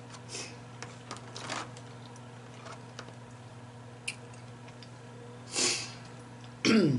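Close-miked mukbang eating sounds: soft wet mouth smacks, clicks and fingers picking at crab legs, with a sharp breath about five and a half seconds in and a short vocal sound falling in pitch near the end. A steady low hum runs underneath.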